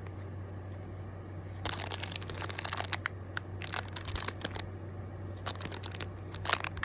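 Packaging being handled and opened, crinkling and rustling in several short bursts. A faint low hum runs underneath.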